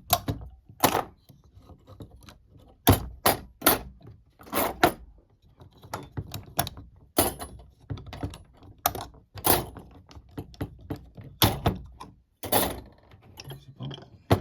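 Small metal safe-lock parts and tools being handled and set down: a string of irregular sharp clicks and clinks, some in quick pairs, with short gaps between them.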